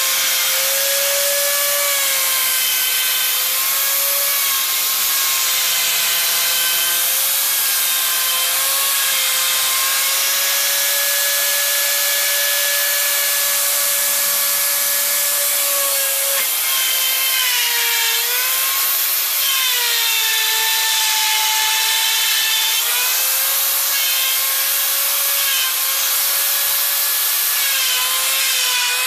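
Electric plunge router cutting a circular groove into particleboard: a high, steady motor whine over the hiss of the cut. The whine dips in pitch a few times in the second half as the bit loads up in the board.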